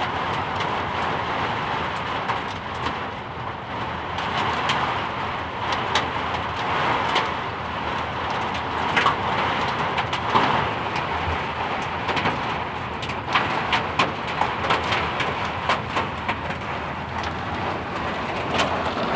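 Thunderstorm with hail: a steady rush of wind and rain, with hailstones striking hard surfaces in many sharp clicks and knocks.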